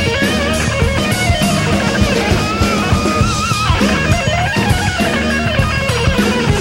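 Rock music: a guitar plays a bending lead line over bass and a drum kit.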